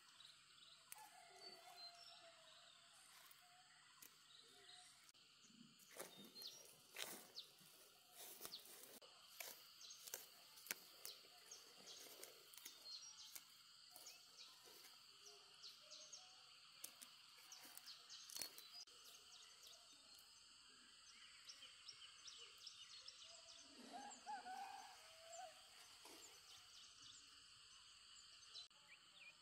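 Faint forest ambience: insects drone steadily, with scattered sharp crackles and snaps from about six to nineteen seconds in.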